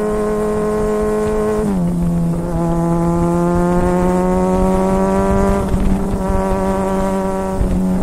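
Sport motorcycle engine held at high revs, a steady high-pitched drone that drops in pitch about two seconds in, slowly climbs, then steps back up near the end.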